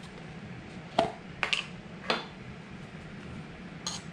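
A few light clicks and clinks of kitchen containers: a plastic lid taken off a baking powder can and a metal teaspoon tapping at it, one clink ringing briefly.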